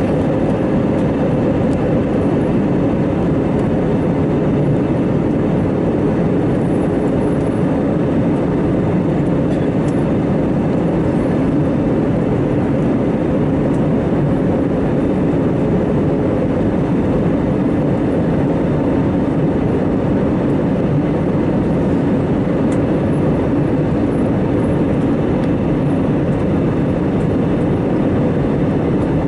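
Steady drone of an Air Asia Airbus A320's jet engines and rushing air heard inside the passenger cabin in flight, even and unbroken, with a few faint steady hums in it.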